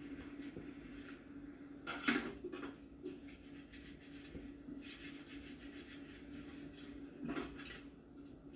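Dishes being handled at a kitchen sink during washing up: a couple of clinks and knocks, one about two seconds in and another near the end, over a steady low hum.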